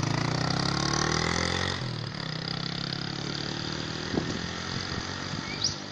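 A vehicle's engine running and rising in pitch as it speeds up, then cutting off sharply about two seconds in; a single sharp click about four seconds in.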